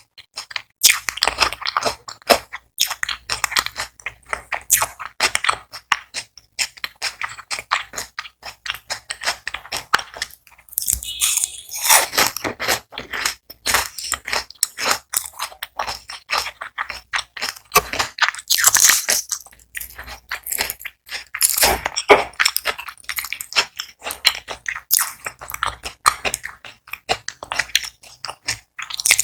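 Close-miked crunching and chewing of crispy fried onion rings: repeated bites into the crunchy batter followed by steady crackling chews, with a few louder crunches along the way.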